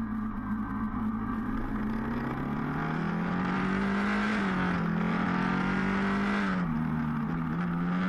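1981 Honda XL500 café racer's single-cylinder four-stroke engine running on the move, its pitch climbing slowly, dipping briefly about two-thirds of the way in and picking up again.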